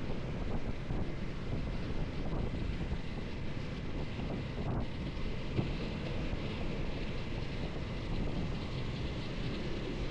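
Wind rushing over the microphone of a moving motorcycle, over steady engine and road noise.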